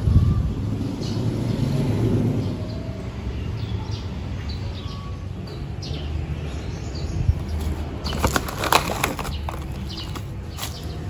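Outdoor garden ambience: low wind rumble on the microphone with scattered faint bird chirps. About eight seconds in comes a short burst of crinkling and rattling as a hand scoops fertilizer granules out of a plastic bag.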